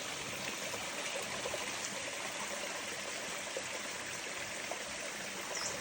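Stream water running steadily, an even rushing, with one brief high chirp near the end.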